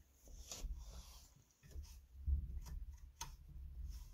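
Cloth rubbing and scratching against a window pane as it is wiped with a rag, with a handful of sharp little clicks and taps against the wooden frame.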